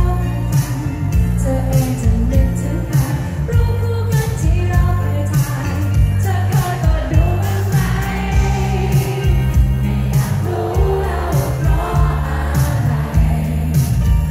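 Live pop band playing loudly over a concert sound system: sung vocals over electric guitar, heavy bass and a steady drum beat.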